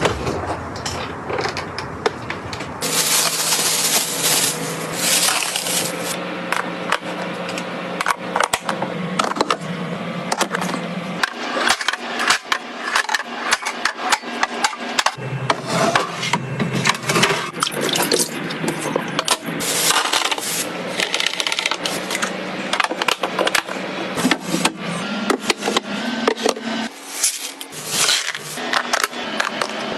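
Close-up clatter of food packaging and plastic containers being handled and set down: many short clicks, taps and rustles, over a low steady hum that changes pitch a few times.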